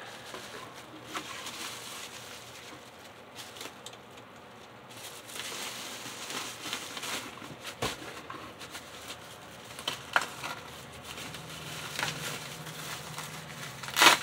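Bubble wrap and a plastic bag crinkling and rustling as a bundle of HO-scale model railroad track sections is unwrapped by hand. Scattered clicks run through it, and a sharp clack near the end is the loudest sound.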